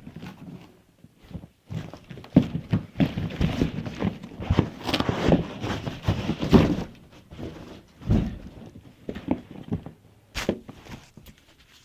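A cardboard box and its packing being handled as a sound bar is pulled out of it: a run of scraping, rustling and knocks, heaviest in the middle, with a sharp knock about ten and a half seconds in.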